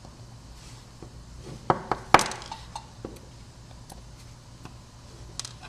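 Small metal lock pins and a tool clicking and clinking on a hard surface as key pins are taken out of a lock plug: two sharper clicks a little under two seconds in, then scattered faint ticks.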